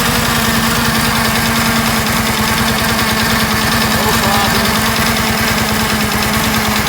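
1947 motorcycle engine idling steadily with an even firing beat. It shows no ticking or knocking, which the owner takes for a tight, fresh motor.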